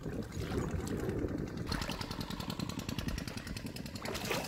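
A small engine running steadily with a rapid, even pulse that comes in about two seconds in, over a low rumble of wind on the microphone.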